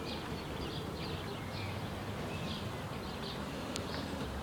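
Outdoor ambience of small birds chirping in short repeated calls over a low, steady background hum.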